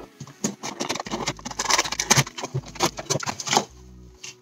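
Cardboard box and paper packaging being handled and opened by hand: irregular rustling and scraping with light taps, dying down near the end.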